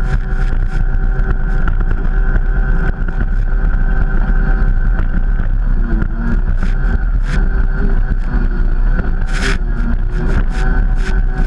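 Stand-up jet ski engine running steadily at speed, its pitch holding nearly level, under a heavy low rumble. Short sharp slaps of the hull and spray hitting the water break in now and then, the loudest near the end.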